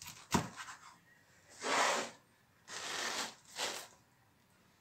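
A knife cutting through the crisp crust of a home-baked pizza on a wooden board. There is a short knock near the start, then three rasping crunches as the blade saws through. The crunch shows that the crust is baked crisp.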